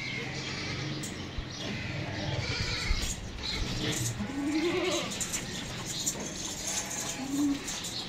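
Goats bleating: one longer call about halfway through and a shorter one near the end.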